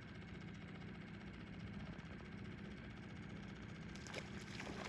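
Faint steady low hum of a small boat's outboard motor idling.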